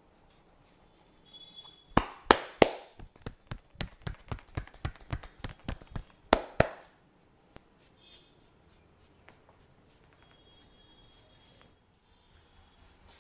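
A rapid series of sharp slaps and cracks from a barber's hands striking during a head and body massage. Three loud cracks come first, then a quick, even run of about four strikes a second, and two more loud cracks end it.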